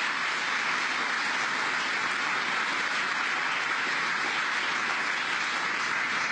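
Audience applauding steadily: dense, even clapping.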